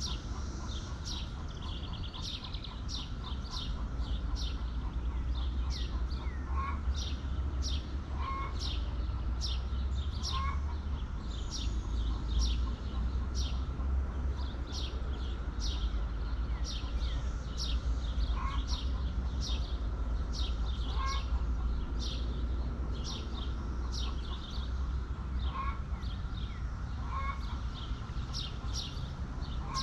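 Hens making occasional short soft calls, over a small bird chirping steadily about twice a second in short high falling notes, with a steady low rumble underneath.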